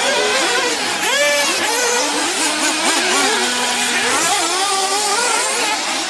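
Small engines of several RC off-road racing buggies running together, each revving up and down as they race around the track.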